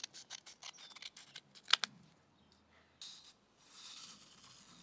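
Scissors snipping through a paper seed packet: a quick run of small cuts and clicks, with one sharper snip just before the two-second mark. About three seconds in, a soft paper rustle follows as the opened packet is tipped to pour the seeds out.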